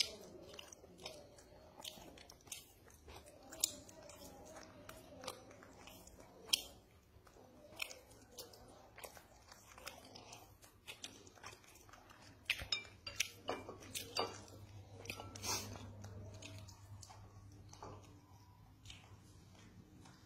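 A baby macaque chewing and biting food, with many small, irregular mouth clicks and smacks, busiest a little past the middle.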